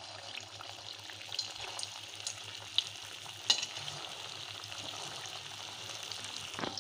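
Semolina kakara pitha dumplings deep-frying in hot oil: a steady sizzle with fine crackling, and two sharp clicks a little before halfway through.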